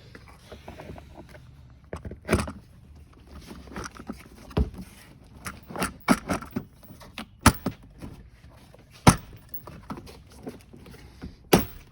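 Hard plastic parts of an electric ride-on toy Jeep knocking and clicking as they are handled and fitted together, a series of sharp knocks a second or two apart.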